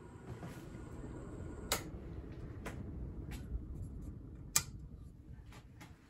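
1986 Homestead WIND ceiling fan running: a steady low rumble from the motor and spinning blades, with a handful of sharp clicks scattered through it, the loudest about four and a half seconds in.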